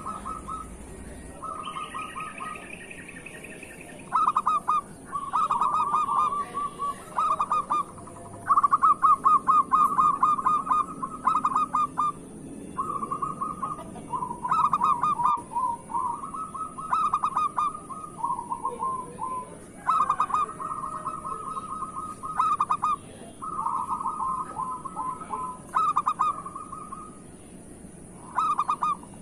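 Zebra doves (perkutut) cooing: phrase after phrase of quick, rattling notes, with only short gaps between them.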